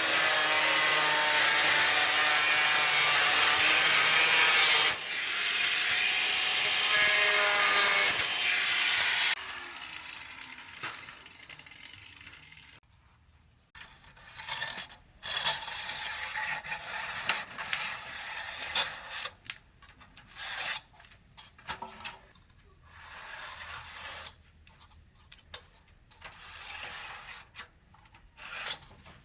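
A motor-driven tool runs loudly for about nine seconds, dips briefly about five seconds in, then stops abruptly. After that come quieter, irregular scraping and rubbing sounds with occasional knocks.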